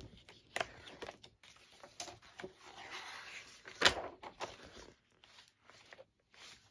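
Pages of a large paper doll book being turned by hand: paper rustling and flapping, with a sharp page flap just before four seconds in, the loudest moment.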